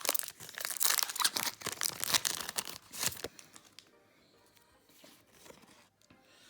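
Pokémon card booster pack's foil wrapper being torn open and crinkled for about three seconds, then much quieter.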